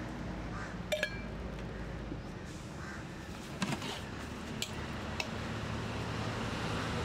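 A few short clinks of stainless steel lids and serving utensils against steel food containers, spaced a second or more apart, over a steady street background hum.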